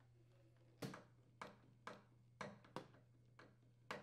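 Faint, irregular clicks and taps, about seven in three seconds, of small parts being handled and fastened at a refrigerator's rear access panel, over a steady low hum.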